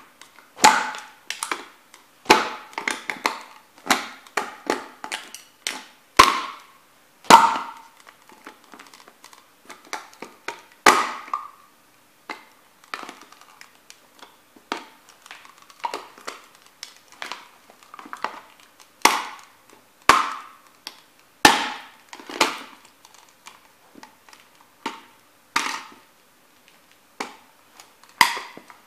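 Sneakers stomping again and again on a small toy truck with a metal cab: sharp irregular knocks and cracks, about one or two a second, some with a brief ring. The blows are weaker for a stretch in the middle and grow stronger again later.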